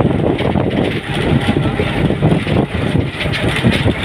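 A vehicle driving along a road, heard from inside through an open side window: a loud, continuous rush of engine, road and wind noise.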